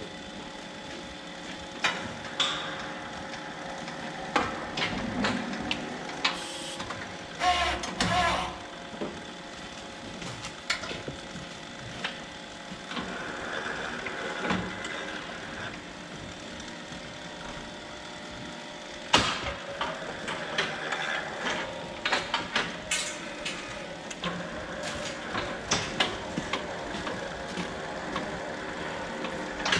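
Scattered metallic clanks, clicks and knocks from a cattle hoof-trimming crate with a cow restrained in it, over a steady low hum.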